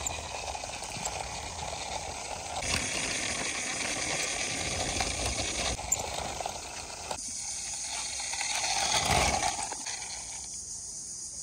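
Plastic wheels of a toy SUV rolling over a rough concrete ledge as it is pushed by hand: a steady gritty hiss that swells to its loudest about nine seconds in.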